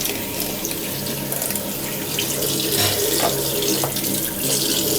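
Tap water running steadily into a sink as a laptop keyboard is rinsed under it.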